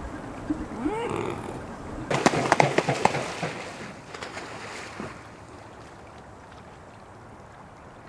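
A swan beating its wings and slapping across the water, a burst of loud splashy strokes lasting about a second and a half before fading. A short rising call comes just before it, with gentle water lapping throughout.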